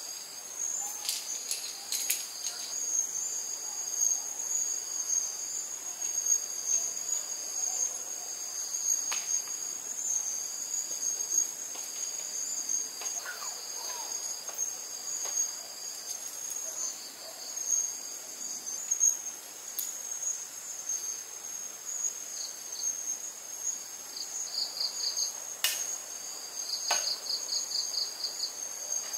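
Insects trilling steadily: one high continuous trill, with a slightly lower second trill that breaks into quick pulsed bursts near the end. A few sharp clicks or taps sound now and then.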